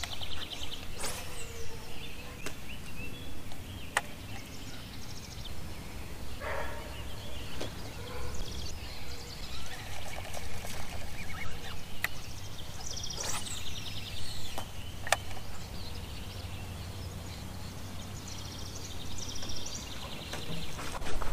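Birds calling around the lake, with repeated rapid trills and sweeping calls. Three sharp clicks come about 4, 12 and 15 seconds in, over a steady low hum.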